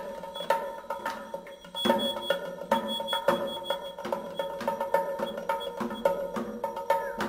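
Background music: irregular wood-block-like knocking percussion over steady held tones.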